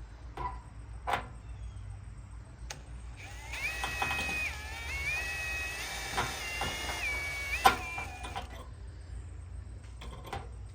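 Electric drill running for about five seconds, boring through the steel of a Weber Smoky Mountain smoker. Its whine steps up and down in pitch as the trigger and load change. A few sharp knocks come before it, and one loud knock near the end.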